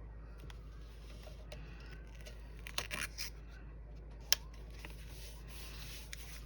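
Scissors cutting paper or tape: a few short crisp snips and rustles near the middle, then one sharp click a little over four seconds in.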